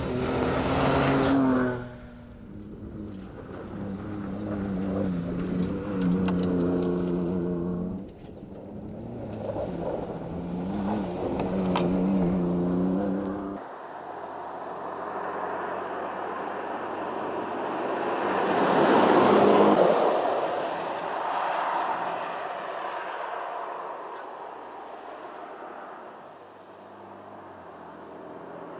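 Ford Ranger Raptor pickup's engine revving hard under acceleration, its pitch climbing and dropping twice. Partway through the sound cuts to the truck driving by on a paved road: engine and tyre noise swell for several seconds and then fade away.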